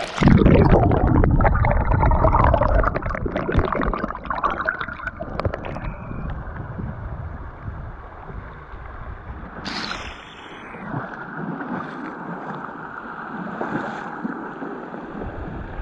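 Shallow river water rushing and gurgling over rocks in a riffle, loud and choppy for the first few seconds as water splashes right against the microphone at the surface, then a steady rush. A brief falling whistle sounds about ten seconds in.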